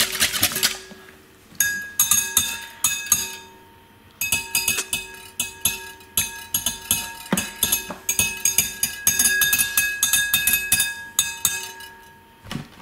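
Wire whisk beating eggs in a glass bowl: fast clinks of metal on glass with the bowl ringing under them. It goes in three spells, pausing briefly about a second in and again about three seconds in, and stops near the end.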